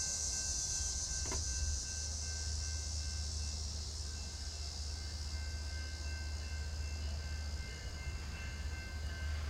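Low steady rumble of a distant approaching freight train, under a steady high-pitched hiss.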